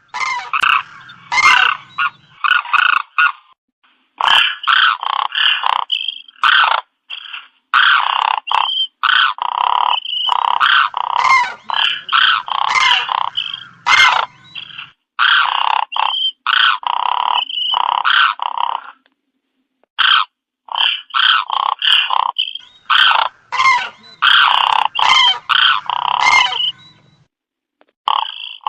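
A flock of cranes (koonj) calling: many overlapping calls repeated in quick runs, with brief pauses between the runs.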